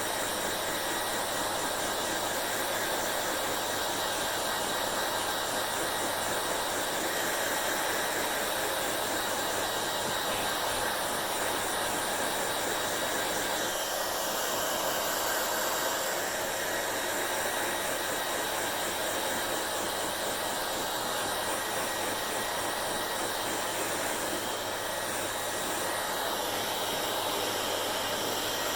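Hand-held hair dryer blowing steadily, a constant rush of air over a motor hum, with a brief change in the high end of its sound about halfway through.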